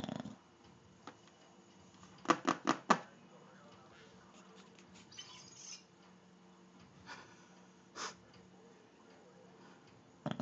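A bulldog's snore ends just after the start. Then comes quiet room tone, broken by four quick, sharp clicks about two seconds in and a few softer rustles and taps later.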